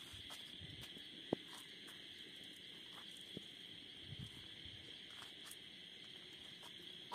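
Crickets and other night insects chirping faintly and steadily, with a few soft clicks and one sharper tick about a second in.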